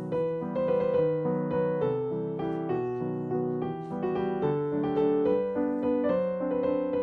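Background music: a piano playing a gentle melody of notes struck one after another.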